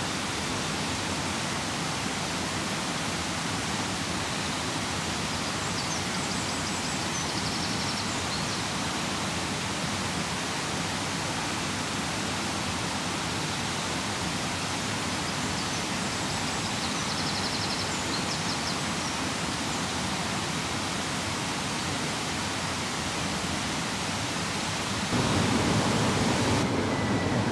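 Steady rush of a fast-flowing stream, stepping up louder and fuller about 25 seconds in.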